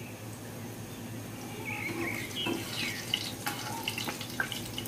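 Egg-dipped bread slices frying in hot oil in a pan, sizzling steadily, with sharper crackles and pops from about halfway through as a slice is lifted out of the oil to be turned.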